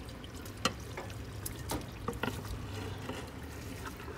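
Crawfish tails and their juices sliding and being pushed out of a container into a pot of onions cooked in butter: a soft wet trickle with a few light clicks, over a low steady hum.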